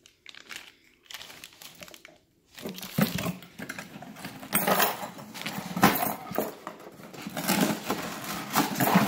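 Packaging being handled: plastic bag crinkling and cardboard box flaps rustling, faint at first, then loud, busy rustling with repeated sharp scrapes from about three seconds in.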